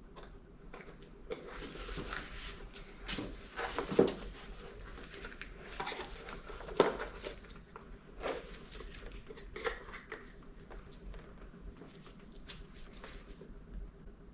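Scattered clicks and knocks of hard plastic headlight parts being handled as a small retaining pin is worked off one headlight assembly and onto the other, with two sharper knocks about four and seven seconds in.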